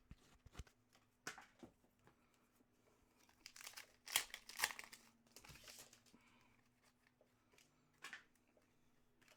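Foil trading-card pack wrapper crinkling and tearing as it is opened, loudest between about three and a half and six seconds in, with a few short soft clicks around it.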